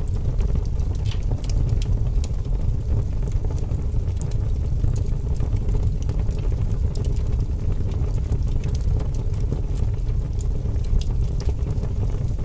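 Steady low rumble with faint scattered crackles and ticks.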